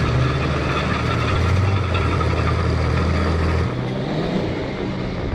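Motor vehicle engine running steadily, with road noise; its low hum drops off about three and a half seconds in.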